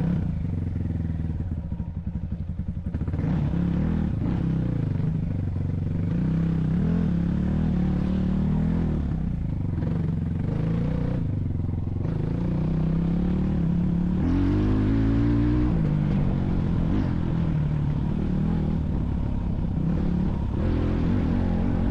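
A vehicle engine driving under load, pulsing at low revs for the first few seconds, then revving up and down again and again as the throttle changes.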